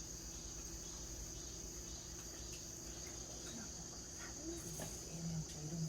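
Crickets chirring steadily in a continuous high-pitched drone, with faint voices low in the background near the end.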